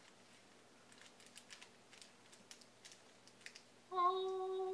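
Candy sprinkles dropped a pinch at a time onto tiny candy donuts in a plastic tray, making light scattered ticks. Near the end a louder, steady pitched tone, like a hum, lasts about a second.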